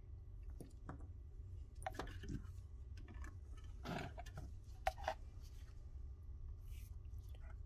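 Light clicks and taps of plastic instrument-cluster parts being handled and set down, over a steady low room hum. The sharpest click comes about five seconds in.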